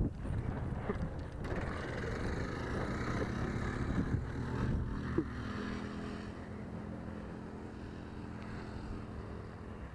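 Small single-cylinder minibike engine running at speed with its governor bypassed. The steady drone fades as the bike pulls away down the road.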